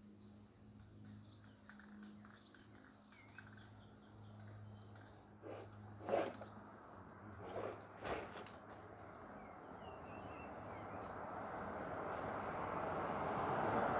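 Quiet outdoor background with a steady faint insect hiss and a few faint bird chirps, and a few brief soft sounds near the middle. From about two-thirds through, a broad rushing noise grows steadily louder: an approaching vehicle.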